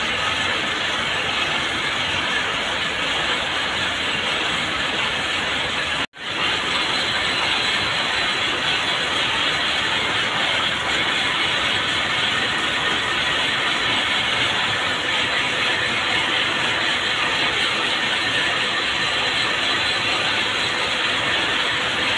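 Cord-making machines running, their spinning yarn carriers, spools and chain drives making a dense, steady mechanical rattle. The sound cuts out for an instant about six seconds in and comes straight back.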